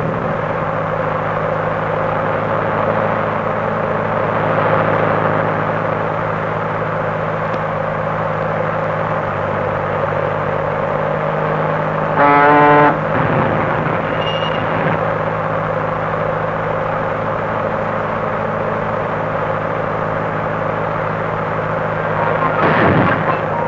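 Car engine running steadily on an old film soundtrack, with a horn honking once for about a second some twelve seconds in.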